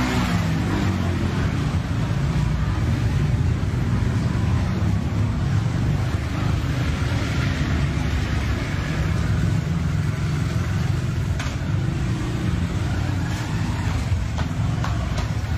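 Road traffic: car and motorbike engines running and passing close by, a steady low rumble that swells and eases as vehicles go past.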